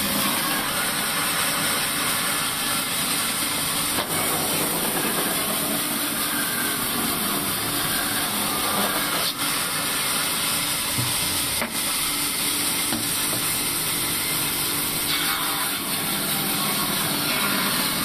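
Large sawmill band saw running steadily, its blade ripping a wooden slab lengthwise: a continuous hiss of sawing over a low hum from the machine.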